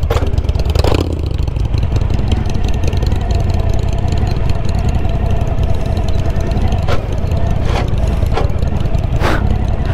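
Suzuki V-Strom motorcycle engine running steadily while riding a rough dirt road, recorded from the moving bike, under a heavy low rumble of wind and road noise. A few sharp knocks, about five, come through as the bike bumps over the ruts.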